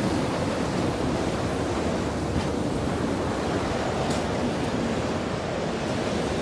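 A steady, even rushing noise with no tune or rhythm.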